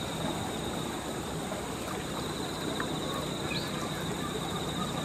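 Steady outdoor background noise with a continuous high, rapidly pulsing buzz running under it.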